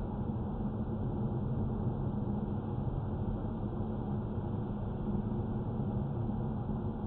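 A Volvo car running, a steady low rumble with no clear separate strikes, recorded to capture the knocking noise the owner complains of.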